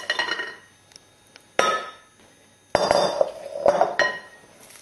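Mixing bowl and utensil clinking and knocking as the last of the dough is scraped out and the bowl is handled: one ringing clink about a second and a half in, then a cluster of knocks and clinks a second later.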